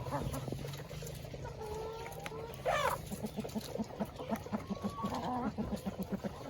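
Ayam kampung chickens calling and clucking: short call notes, a loud squawk near the middle, then a run of rapid low clucks at about four a second.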